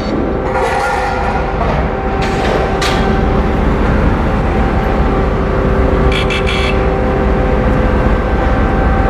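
Engines of the ferry MV Queen of Cumberland running under way with a steady low rumble and droning hum, with a few brief rattles mixed in.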